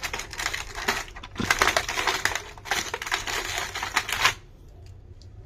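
Toy packaging being crinkled and crushed by hand: dense crackling in three stretches that stops a little after four seconds in.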